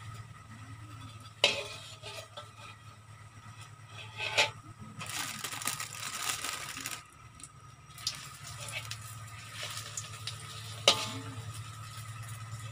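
Kitchen cooking sounds: a steady low hum, three sharp knocks of utensils on cookware, and a hissing burst of about two seconds in the middle.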